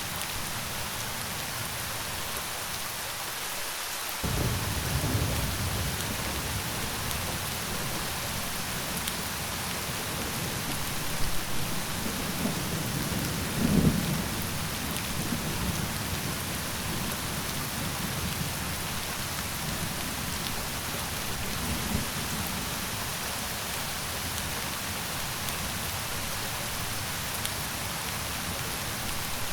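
Steady rain with rolling thunder: a low rumble breaks in about four seconds in, swells into two loud claps near the middle, then fades back to the rain alone.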